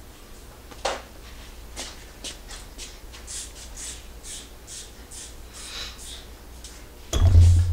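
Footsteps scuffing across a shop floor, about two a second, over a steady low hum, with a click about a second in and a heavy low thump near the end.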